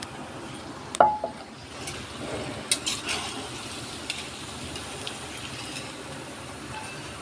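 A steady hiss with a sharp clink about a second in that rings briefly, then a few lighter clicks.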